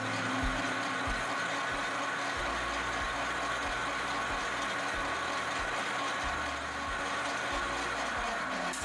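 Metal lathe running with a knurling tool pressed into the spinning steel workpiece while a brush scrubs the knurled surface to clear the chips: a steady mechanical whir with a hiss over it.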